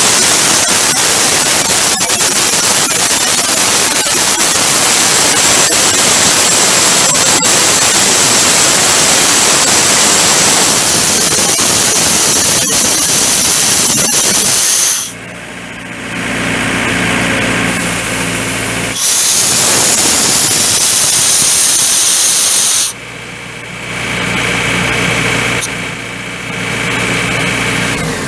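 Sullivan Palatek D185PJD diesel air compressor blowing off compressed air in a loud, steady hiss. The air is shut off about halfway through, leaving the compressor's John Deere four-cylinder diesel running steadily. The air is then opened again for a few seconds and shut off once more near the end.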